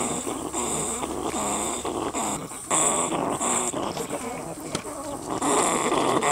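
Chickens clucking with low, growling calls, the warning sound hens make at a threat, here a rat caught in a wire cage trap. A high chirping comes and goes over it, dropping away for a second or so about four seconds in.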